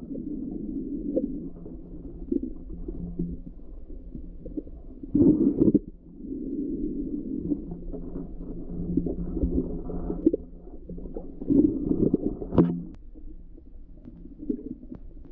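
Muffled low rumbling and sloshing of water heard through a submerged camera, swelling unevenly. There are louder surges about a third of the way in and again past the middle, the second with a sharp click.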